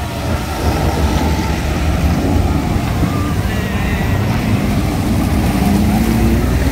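Engines of open-top off-road jeeps running close by as they drive through a shallow river bed, with a steady low rumble and an engine note that rises briefly near the end as a jeep comes up.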